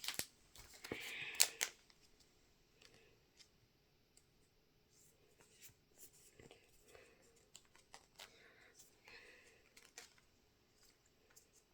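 Soft plastic clicks and a short sliding rustle as a trading card is slipped into a protective plastic case, followed by faint scattered clicks of handling.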